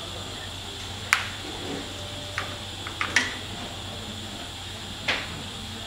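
About five sharp clicks and knocks of a compression-tester hose and hand tools being handled at the spark-plug wells of a bare engine, over a steady room hum.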